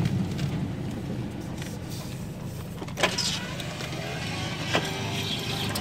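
Car engine running at low speed, heard from inside the cabin as the car creeps along a dirt track. There is a sharp knock about three seconds in, after which more outside hiss comes in, and another short knock near five seconds.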